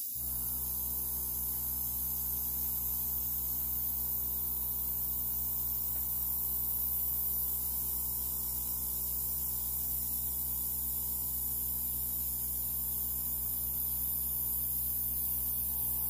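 Airbrush air compressor running with a steady electric hum, and a high hiss of air from the airbrush nozzle blowing alcohol ink across paper; it switches on suddenly and then holds constant.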